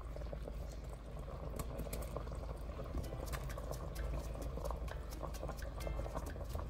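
A pot of red curry sauce with coconut milk boiling, with many small irregular bubbling pops, as broccoli florets are dropped into it.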